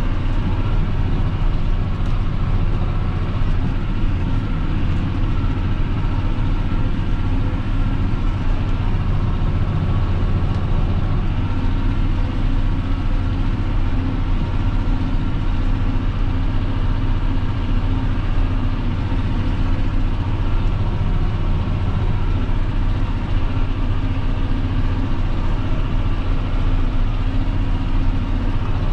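John Deere 6530 tractor's six-cylinder diesel engine running steadily, heard from inside the cab.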